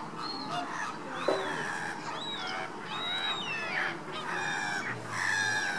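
A flock of Caribbean flamingos calling: many goose-like honks overlapping, some rising and falling in pitch, growing denser and stronger near the end. A short sharp knock sounds just over a second in.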